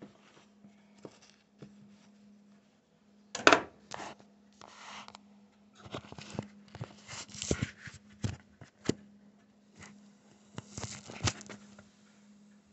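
Kitchen handling noises while a sandwich is put together: scattered knocks, clicks and rustles, the loudest a short clatter about three and a half seconds in, over a steady low hum.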